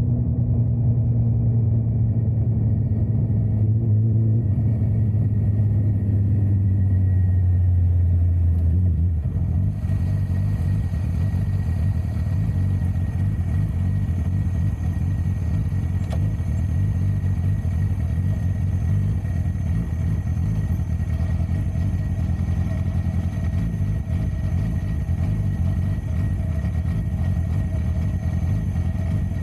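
Motorcycle engine heard on board, its note easing down over the first nine seconds or so as the bike slows, then a steadier, lower rumble as it rolls in and comes to a stop.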